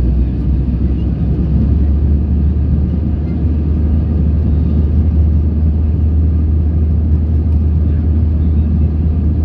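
Steady, deep cabin rumble of an Airbus A320ceo in flight after takeoff, engine and airflow noise heard from a seat over the wing.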